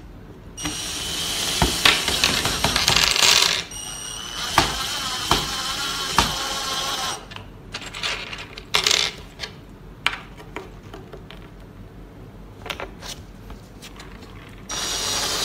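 Cordless drill driving screws into a particleboard panel: two runs of the motor of about three seconds each, a short burst in the middle, and another run starting near the end. Between the runs come scattered small metallic clicks and clinks.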